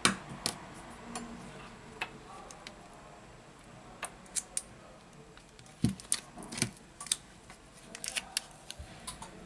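Scattered sharp clicks and taps of a Samsung Galaxy J6 Plus being handled during a display replacement: a click right at the start as the display flex connector is pressed home, then the phone's frame and new screen being handled, with the loudest taps about six seconds in and a quick run of them about eight seconds in.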